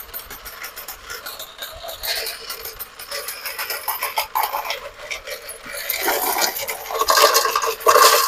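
Motorised coin hopper of a coin counter paying out coins: a quick, uneven stream of metallic clinks and rattles as the coins are ejected and drop. In the last two seconds the clattering gets louder and busier as more coins are handled at the chute.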